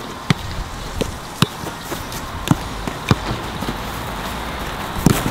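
A football bouncing on artificial turf: a handful of short, sharp thuds at irregular intervals.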